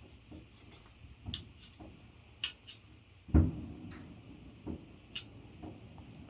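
Handling noises as he works on the engine: a scattering of light clicks and taps, with one louder, dull thump about halfway through.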